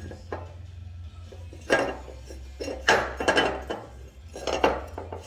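Aluminum pieces being handled on a metal surface: a few short clinks and scrapes, about two seconds in, around three seconds, and again around four and a half seconds, over a steady low hum.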